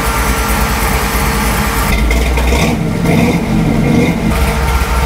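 Carbureted 383 small-block V8 idling steadily while warming up, with a high-output SPAL electric radiator fan running alongside it. The fan is still running because it has not yet pulled the temperature down enough to cycle off.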